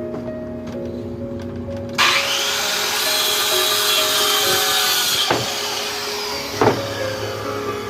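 A saw cutting through wood: about two seconds in a loud rough sawing noise starts suddenly, runs for about three seconds, then eases off, with two sharp knocks later on. Background music plays throughout.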